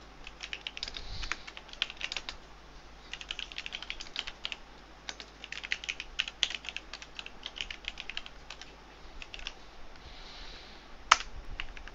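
Computer keyboard being typed on in quick runs of keystrokes with short pauses between them. The clicks thin out for a couple of seconds, then one sharper key press comes near the end.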